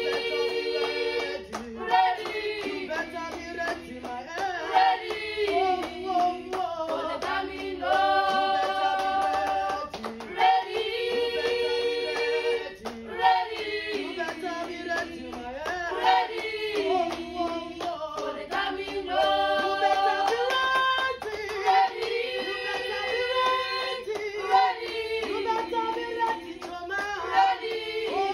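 A group of women and girls singing together a cappella, several voices in harmony in short repeating phrases, with hand claps keeping the beat.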